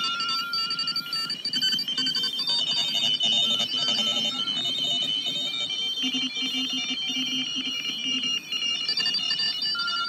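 Morse code (CW) signals on the 40 m amateur band coming from the speaker of a homebuilt regenerative shortwave receiver. Several stations are keyed at once at different beat pitches, a few high beeps and a low one, over band hiss.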